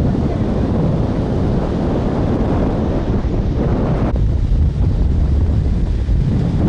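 Wind buffeting the microphone over a steady rushing of floodwater. About four seconds in, the higher part of the rush drops away and the low wind rumble stays.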